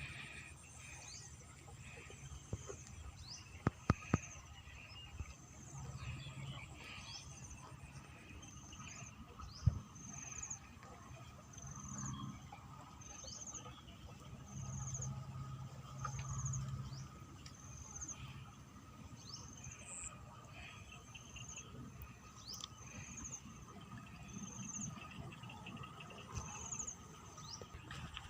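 Outdoor field ambience: a short high chirp repeating steadily about once every second and a bit, with other faint insect or bird calls. A faint low rumble comes and goes, and a few sharp clicks sound around four and ten seconds in.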